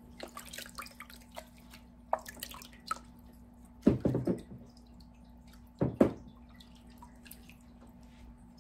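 Water splashing and dripping as a small metal utensil is dipped into and lifted out of plastic buckets of water, with small splashes throughout and two louder splashes about four and six seconds in.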